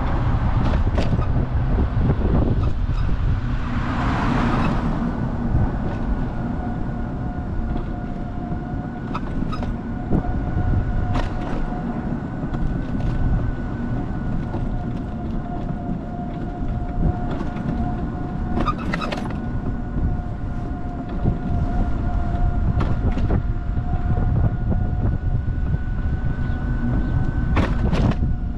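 A car driving on a rough road: steady low road and engine rumble with scattered knocks and rattles over bumps. A steady whine sets in about six seconds in, and a brief rushing swell comes about four seconds in.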